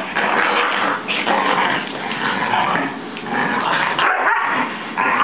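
A small black-and-white dog barking and growling in a worked-up frenzy as it rough-plays at a person's hands, in repeated bursts with short breaks.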